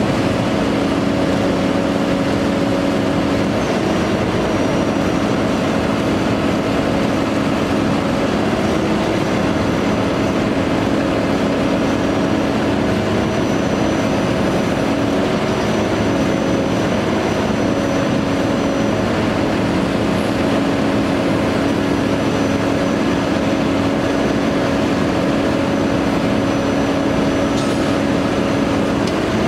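Bucket truck's engine running steadily to drive the Altec AA755 aerial lift's hydraulic pump as the boom is operated from the bucket: an even mechanical drone with several held tones that waver slightly in pitch.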